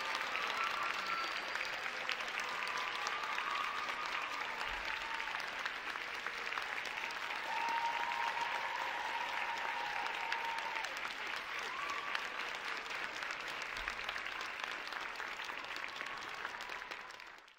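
Audience applauding steadily after a dance performance, dense clapping that cuts off abruptly near the end.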